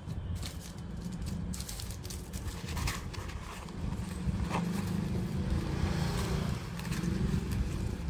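Hand rummaging inside a padded fabric drone shoulder bag: fabric and plastic wrapping rustle, with scattered light clicks and knocks, busier and louder in the second half. A steady low rumble runs underneath.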